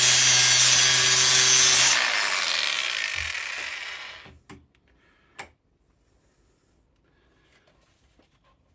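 A power tool grinding or cutting sheet metal, running steadily, then switched off about two seconds in and winding down over the next two seconds. Two light knocks follow.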